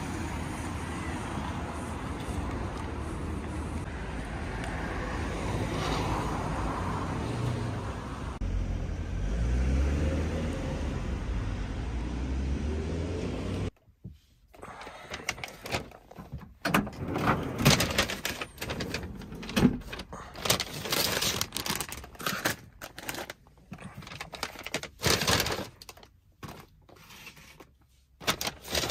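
Road traffic: a car passing close by, its engine and tyre noise swelling and fading away about halfway through. Then, after a sudden break, a paper grocery bag and plastic food packaging rustle and clack in irregular bursts as they are handled in a truck cab.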